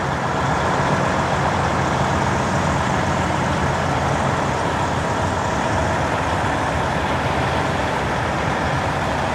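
A semi-truck engine idling steadily, with no change in pitch or level.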